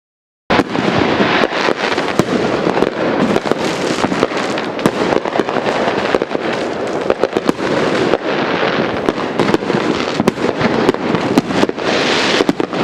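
Many fireworks and firecrackers going off at once: a dense, unbroken run of sharp bangs and crackling that starts abruptly about half a second in.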